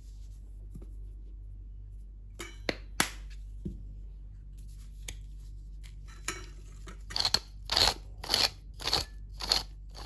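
Handheld pepper grinder twisted over a bowl, five short crunching grinds about half a second apart near the end, after a few light clicks and knocks.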